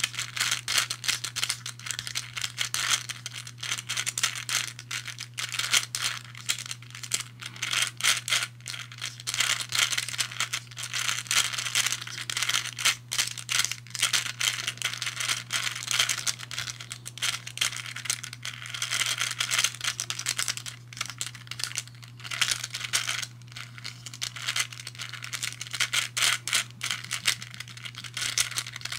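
Hungarian Rings puzzle being scrambled: its rings are turned over and over, and the balls click and rattle continuously as they roll along the two intersecting tracks.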